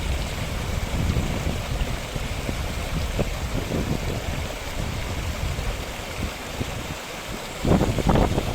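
Wind buffeting the camera microphone: an uneven low rumble that swells more strongly near the end.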